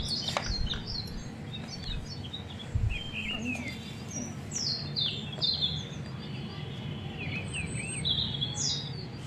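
Small birds chirping in the background: many short, high chirps and quick falling notes, scattered irregularly throughout.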